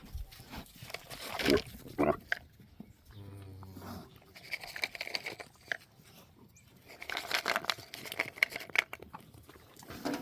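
A miniature cow gives a short, low call lasting under a second, about three seconds in. Scattered rustling and crunching runs through the rest.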